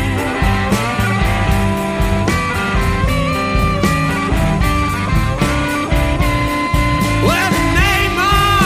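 Blues record playing, guitar over a steady beat; wavering, sliding high notes come in about seven seconds in.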